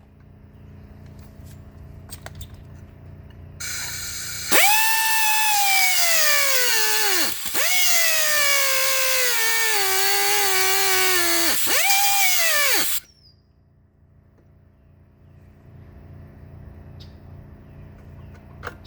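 Grinder with a cutting disc cutting through a welded steel bracket on a motorcycle frame. It starts with a hiss, spins up to a high whine, then the pitch sags as the disc bites into the metal under load and recovers briefly twice. It stops suddenly near the end.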